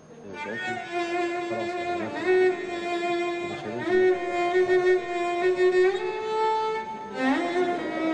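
Drama score music: a violin plays a slow melody of long held notes that slide into one another, with bowed strings beneath, swelling in at the start.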